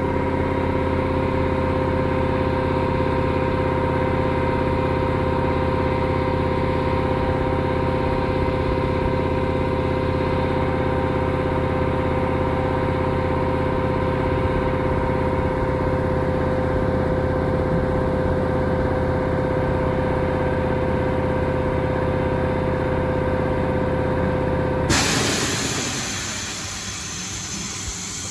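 Air compressor of the SNCF BB 15027R electric locomotive running with a steady pitched hum. About 25 seconds in it cuts out and air hisses out as it stops.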